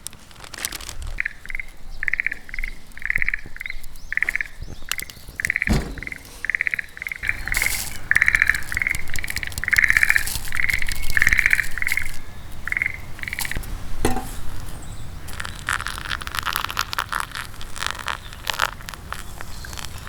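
A frog calling in a steady series of short, raspy croaks, about two a second, that stop about 13 seconds in. A spell of crackling follows near the end.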